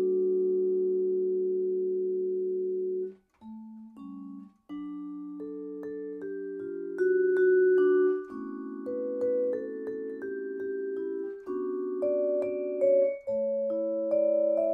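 Solo vibraphone played with four mallets: a held chord rings for about three seconds and is damped off, then after a short pause chords and a melody line resume.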